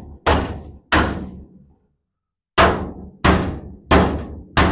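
Sharp metal knocks with a short ringing decay after each, six in all: two, a pause of about a second and a half, then four in a steady run. The knocks come from a hammer driving a scraper to chip old, hardened seam sealer out of the rusted floor seam of a Chevrolet C10 cab.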